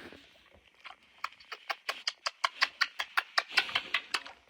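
A pig making a fast, even run of sharp clicking noises, about six a second, that starts about a second in and stops near the end.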